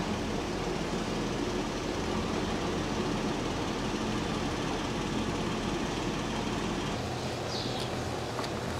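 Steady low mechanical hum with an even background drone, unchanging throughout: barn machinery noise.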